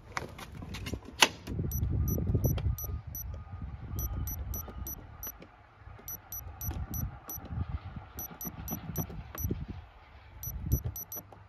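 Wireless garage door opener keypad beeping at each button press: short high beeps in quick runs of about six, repeated several times. A sharp click about a second in.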